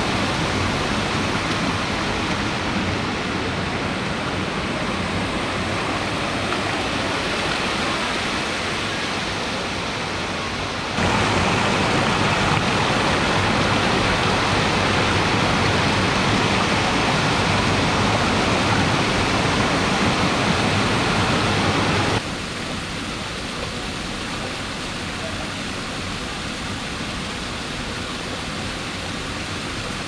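Waterfall cascading over limestone ledges into a pool: a steady rush of falling water. It gets abruptly louder about a third of the way in and drops back down about two-thirds of the way through.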